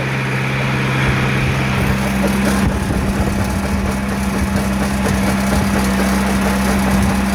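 John Deere tractor engine running steadily as it pulls across the field; about two and a half seconds in, its tone shifts and one of its hums drops away.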